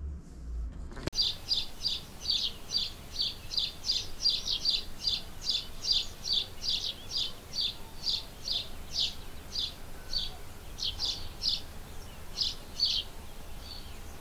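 A small bird chirping over and over, starting about a second in, at about three short, high chirps a second with a few brief gaps, over a faint steady outdoor hiss.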